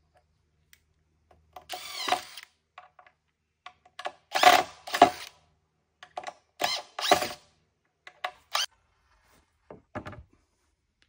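Cordless drill driving screws into a timber board in several short bursts, the motor whining up in pitch at the start of a burst. Near the end, a lumber board knocks against the wooden frame.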